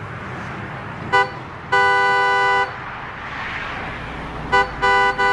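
Car horn honking: a short tap, then a blast of about a second, then another tap followed by two more long blasts near the end, over low traffic noise.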